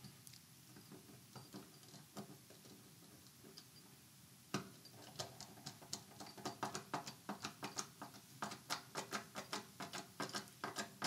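Small screwdriver driving the mounting screws of a Glock MOS optic adapter plate into a pistol slide, making faint, light clicks. They are sparse at first, then from about halfway become a steady run of ticks at about four a second as the screws are turned in.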